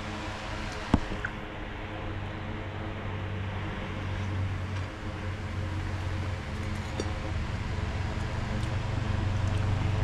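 Steady mechanical hum with a low rumble that swells twice, and a single sharp click about a second in.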